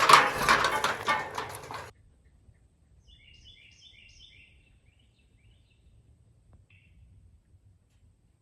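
A loud rushing noise that cuts off suddenly about two seconds in, then a small bird chirping a quick series of high notes over a faint low rumble.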